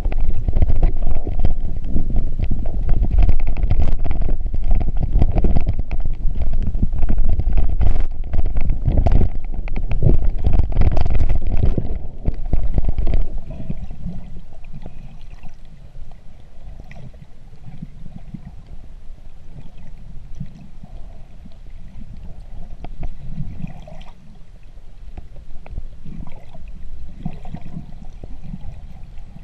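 Muffled underwater rumble of water moving around a camera's waterproof housing, with scattered crackling clicks. It is loud for the first dozen seconds or so, then drops to a softer rumble.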